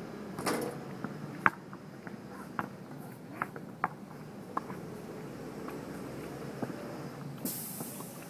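Scattered sharp knocks and clicks on a plastic tile basketball court, the loudest about a second and a half in. A brief hiss near the end.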